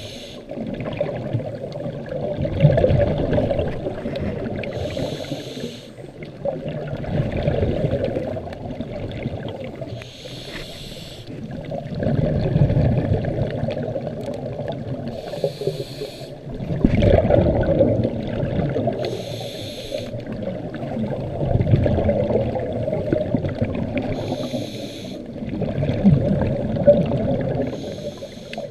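A diver breathing through a scuba regulator underwater. Each inhale gives a short hiss, about every four to five seconds, and exhaled air bubbles out as a low rumbling gurgle between breaths.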